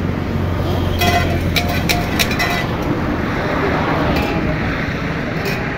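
Highway traffic going by, cars and a pickup passing, with a steady road noise and a low hum in the first couple of seconds. A quick run of short clicks and clinks comes between about one and two and a half seconds in.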